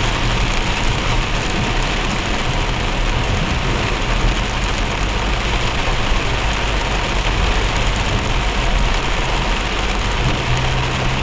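Heavy rain pouring steadily, with the low rumble of vehicles underneath.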